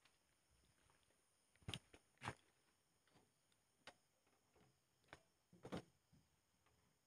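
Near quiet, broken by a handful of faint, short knocks and clicks spread over several seconds, from a person moving about and handling a locked door.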